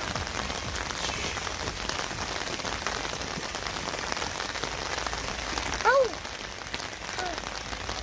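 Steady rain falling on lake water and a wooden boardwalk. About six seconds in, a short, high voice-like call cuts through once, with a fainter one just after.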